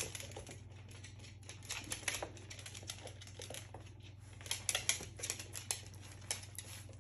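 Irregular light clicks and taps coming in small clusters, loudest around the middle and toward the end, over a steady low hum.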